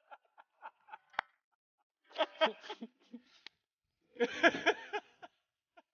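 A man laughing in two short bursts of quick, breathy pulses, about two seconds in and again about four seconds in.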